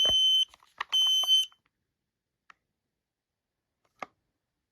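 Kidde KN-COSM-IBA combination smoke and carbon monoxide alarm sounding its fire alarm: two high-pitched half-second beeps about a second apart, ending its three-beep pattern. Then it stops, leaving a faint tick about two and a half seconds in and a sharper one near the end.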